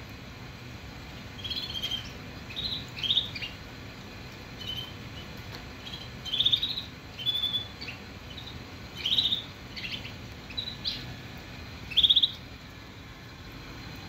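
Caged Shirazi canary singing in short, separate chirps and trills a few seconds apart rather than a continuous song: a bird that sings but is not yet in full song. The loudest trill comes near the end.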